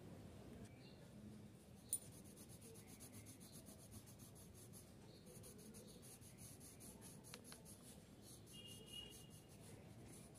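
Faint scratching of a pencil drawing lines on paper, with a single sharp click about two seconds in.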